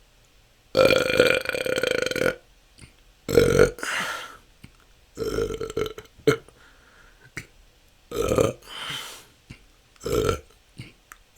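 A person burping repeatedly: about five or six belches of varying length with short pauses between them. The first, just under a second in, is the longest at about a second and a half; the rest are shorter.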